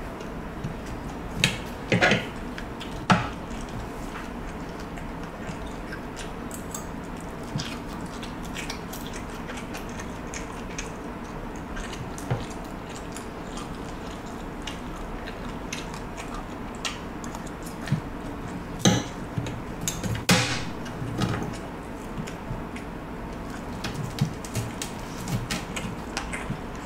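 Fork and spoon scooping rice and fish on a plate, with scattered clicks and clinks of the cutlery, the sharpest ones twice near the start and twice near the middle, and quiet chewing in between.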